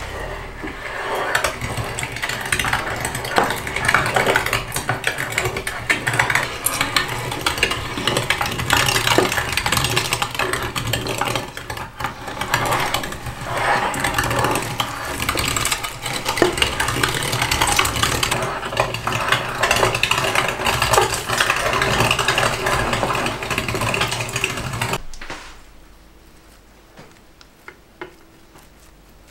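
Old hand-cranked cast-iron meat grinder mincing raw beef: a steady grinding and clicking as the crank turns the auger and meat is forced through the plate, stopping abruptly about 25 seconds in.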